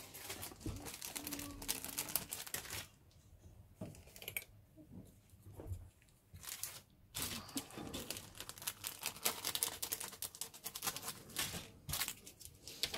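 Clear plastic bag holding a model kit's clear-parts sprue crinkling as it is handled and the sprue is slid out. The crinkling comes in bursts, with a lull about three to six seconds in.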